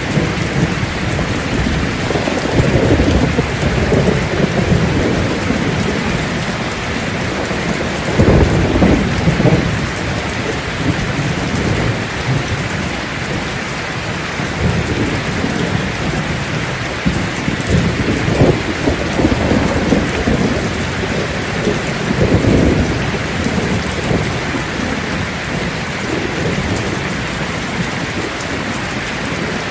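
Steady heavy rain drumming on a roof, with about four low rolling rumbles of thunder swelling and fading.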